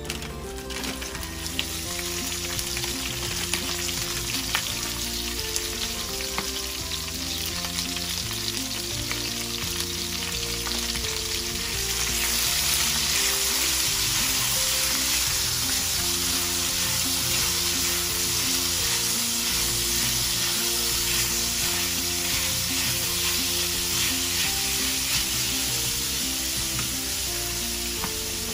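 Green beans sizzling as they fry in hot oil in a stainless steel skillet, stirred and tossed with tongs. The sizzle grows louder about twelve seconds in.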